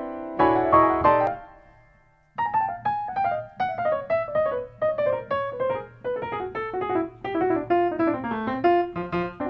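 Background piano music: a few struck chords that ring out and fade to a brief lull about two seconds in, then a steady run of quick single notes stepping downward, rising again near the end.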